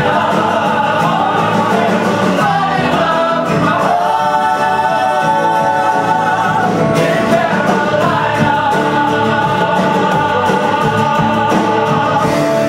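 Ensemble of voices singing a folk-rock show tune with band accompaniment; about four seconds in, the voices hold a long chord for a few seconds before the song moves on.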